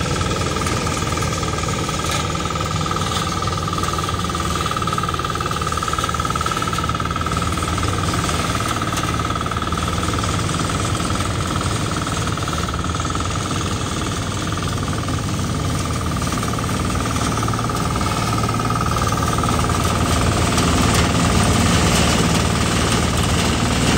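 Small farm tractor's engine running steadily under load while a tow-behind grass chopper cuts tall grass and blows the chopped grass into a mesh trailer, with a steady high whine over the engine's rapid chugging.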